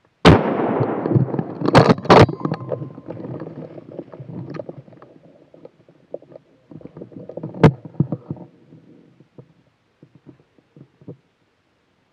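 A single gunshot from a hunting gun, a sudden crack whose report rolls and echoes away through the woods for several seconds. Two sharp clicks or knocks come about two seconds in, another about seven and a half seconds in, with fainter knocks after.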